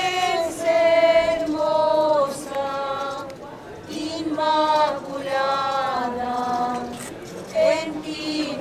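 Nuns singing a Marian hymn, women's voices in slow phrases of long held notes with short breaks between them.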